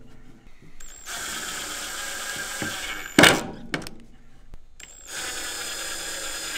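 Cordless drill driving small screws to fasten metal hooks into a cedar board. The motor runs steadily for about two seconds, then a sharp knock sounds, then the motor runs again for a couple of seconds near the end.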